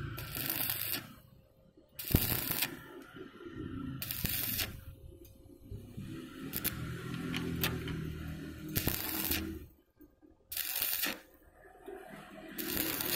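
Stick (arc) welding electrode crackling and sizzling as it lays a bead across a gap in steel tubing, with loud hissing surges of the arc about every two seconds.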